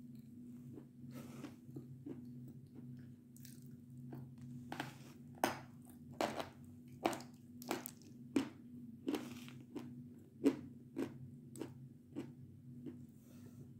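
Bites and chewing of a chunk of edible Belgorod chalk, close to the microphone. Sharp crunches come about once a second from a few seconds in, over a low steady hum.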